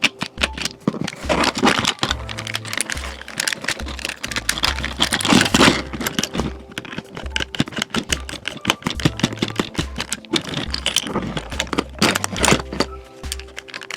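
Background music with a repeating bass line, with many sharp clicks and short rustles over it.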